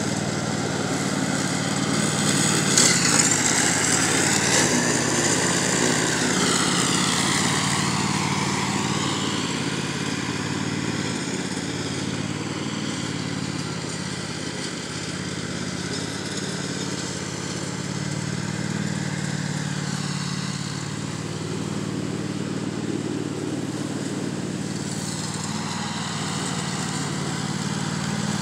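Zero-turn riding lawn mower running steadily while mowing, its engine a constant hum; it is louder for several seconds near the start as it passes close.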